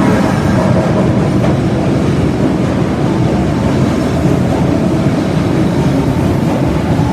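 Osaka Metro Tanimachi Line 22 series subway train running, a steady loud rumble of wheels and running gear on the rails.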